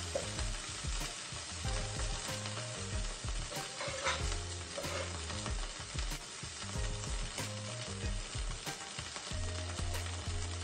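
Ginger, garlic, bell pepper and black beans sizzling in a stainless steel frying pan, a steady hiss dotted with small crackling pops. Background music with a low bass line plays underneath.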